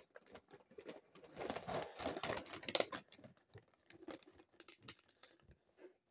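Plastic dry dog food bag crinkling and crackling as it is handled, thickest for a couple of seconds about a second in, then a scatter of lighter crackles.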